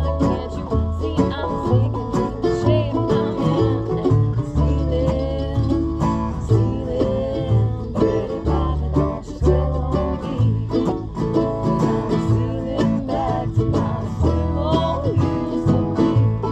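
Acoustic bluegrass band playing a tune, with banjo picking and guitar over steady low bass notes.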